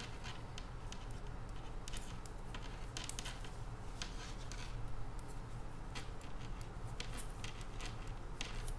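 Metal knitting needles clicking lightly against each other as a row of wool is purled stitch by stitch, with the yarn rustling; the clicks come irregularly, a few a second.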